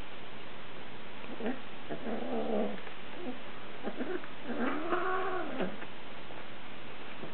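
Lynx point Siamese cat in heat yowling: two drawn-out calls a couple of seconds apart, the second rising and then falling in pitch. This is the mating call of a female cat in heat.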